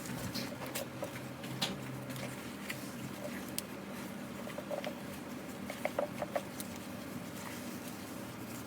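Slime being handled, pressed and poked, giving scattered small sticky pops and clicks, with a little cluster of them about six seconds in.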